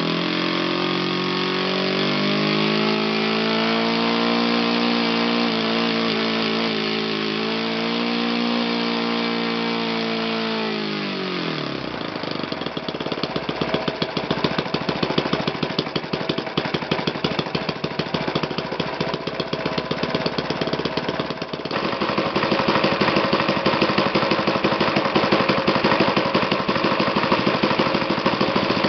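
Magnum 120S single-cylinder four-stroke glow model engine, driving a propeller on a test bench. It runs steadily at mid speed, about 4,000 rpm, then about eleven seconds in the pitch falls away as it is throttled back. It settles into a low idle near 2,000 rpm, where each firing stroke can be heard as a rhythmic chug, and the idle grows louder about two-thirds of the way through.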